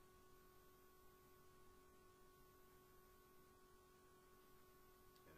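Near silence, with a faint steady hum made of a few constant tones.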